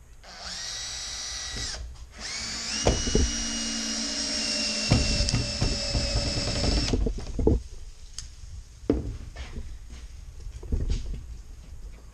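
Cordless drill driving pocket-hole screws to join wooden boards: a short run of the motor's steady whine, then a longer run of about four and a half seconds that stops abruptly, followed by several sharp knocks of wood and tool handling.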